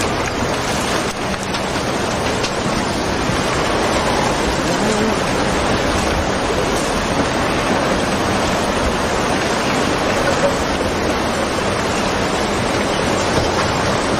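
A steady rush of tsunami floodwater surging through a cove, churning with the wreckage of houses.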